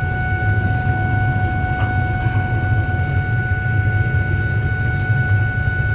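Car cabin noise while driving, a steady low rumble, with a steady high tone that holds at one pitch throughout.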